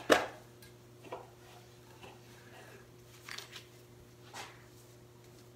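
The lid of a metal paste-wax tin coming off with one sharp click near the start, followed by a few soft scuffs and rubs as a cloth is worked into the wax and wiped over the plane's steel body.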